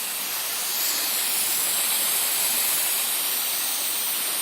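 Aerosol can of silicone spray for leather shoes hissing steadily in one long continuous spray.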